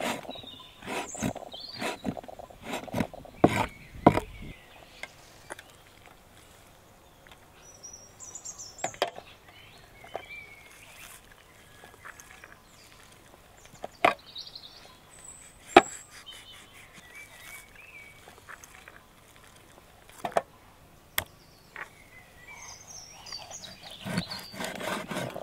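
Large kitchen knife chopping lamb offal on a wooden cutting board: a quick run of knocks in the first few seconds, then single knocks every few seconds and a few more near the end. Birds chirp in the background.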